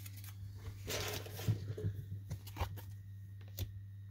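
Rustle of plastic card sleeves, then a few light clicks and taps as baseball cards in hard plastic top loaders are handled and set down, over a steady low hum.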